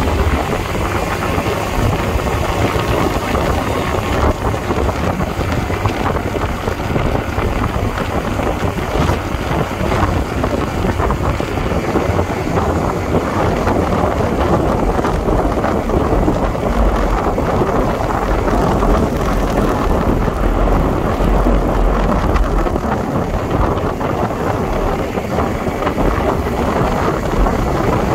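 Wind buffeting the microphone on a moving motorbike, over the steady hum of its small engine and tyre noise. The low rumble swells somewhat in the second half.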